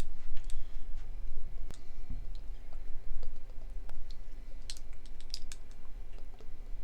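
Scattered light clicks and taps of plastic bottles, caps and containers being handled, more frequent in the second half, over a steady low hum.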